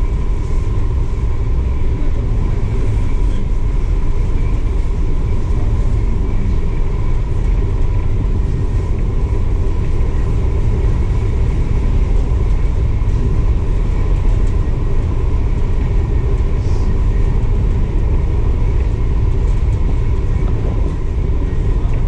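Steady low rumble aboard a ferry under way, with a thin steady hum running over it.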